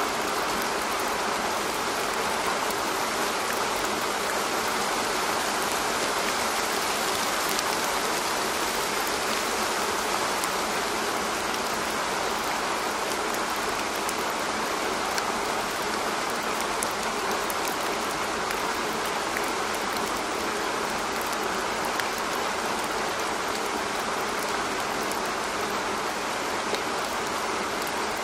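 Steady rain, an even hiss with scattered faint drop ticks.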